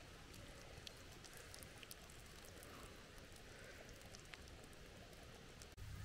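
Near silence: a faint steady hiss with a few small scattered ticks.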